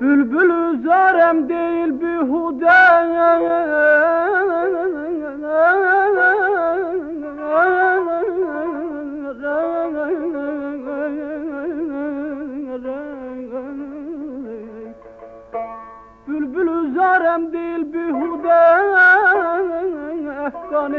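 Azerbaijani mugham: a singer holds a long, ornamented wordless melisma full of quick trills and slides, with string accompaniment underneath; the line drops away about fifteen seconds in and comes back a second later.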